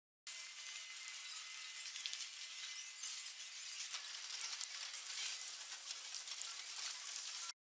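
Airport baggage carousel running, heard from an action camera riding on the belt: a thin, hissy clatter with scattered clicks and clinks. It cuts in just after the start and cuts off suddenly near the end.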